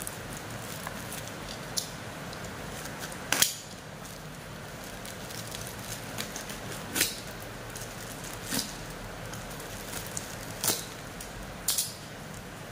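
A parcel being unwrapped: about half a dozen sharp crackles and snaps of packaging being handled and torn open, over the steady hiss of rain.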